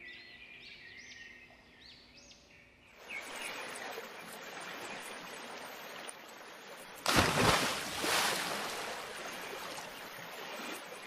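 Birds chirping for the first few seconds, then steady running water. About seven seconds in comes one loud splash as a cast net is thrown into the water, and it fades away over the next second.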